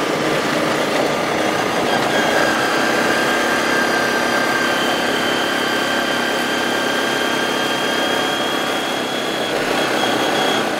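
ATV engine running steadily while riding along a gravel road, over a dense noisy rush. A steady high whine joins about two seconds in.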